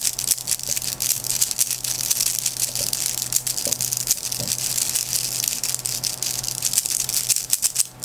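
Plastic 3x3 Rubik's cube being scrambled by hand, its layers turned over and over in quick succession: a fast, continuous run of plastic clicks, with a brief pause near the end.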